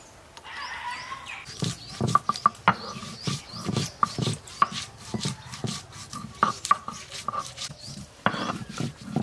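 A hand-held block pounding garlic cloves on a wooden board: a run of sharp knocks, two or three a second, starting about a second and a half in, after softer rubbing.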